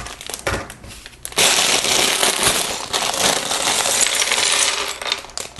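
Loose Lego pieces poured out of their plastic bag onto a table: a few clicks, then a dense clatter of many small plastic parts falling and tumbling together, starting about a second and a half in and lasting about three and a half seconds.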